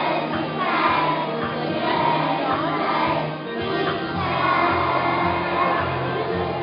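A group of young children singing a song together over instrumental accompaniment, with steady bass notes coming in about four seconds in.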